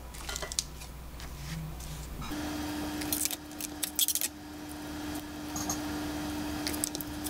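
Light clicks and papery rustles of garlic cloves being peeled and handled on a wooden cutting board, with a chef's knife set on the board. A steady hum comes in about two seconds in.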